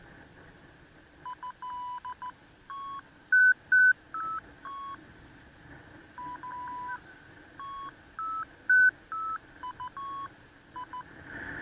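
RC glider telemetry audio variometer beeping through the transmitter's speaker: short electronic beeps, singly and in quick groups, stepping between several pitches, with a few higher, louder beeps about three and a half seconds and nine seconds in. The changing pitch reports the sailplane's climb or sink as it searches for lift.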